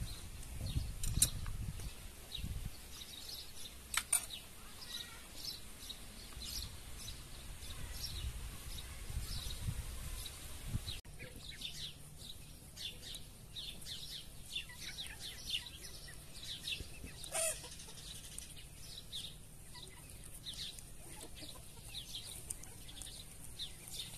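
Farmyard birds calling: a steady scatter of short, high chirps and peeps, with one louder call past the middle. Low wind rumble on the microphone covers roughly the first ten seconds.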